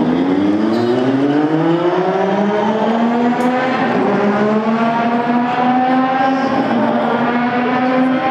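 McLaren Honda MP4/4 Formula One car's turbocharged Honda V6 pulling away from a standstill. Its engine note rises over the first few seconds, then holds steady.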